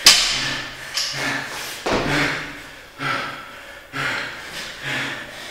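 A man breathing hard and forcefully between barbell lifts, one loud exhalation about every second, some with a voiced grunt. A sharp thump at the very start, the loudest sound, as the loaded barbell meets the floor.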